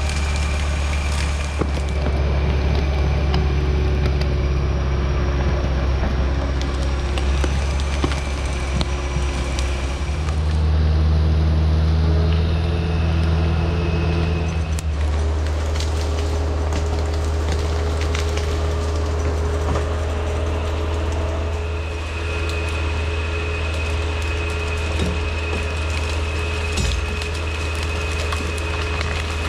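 Diesel engine of an LKT 81 Turbo forestry skidder running steadily, its revs rising for a few seconds about ten seconds in. Short cracks and snaps of wood and branches come now and then.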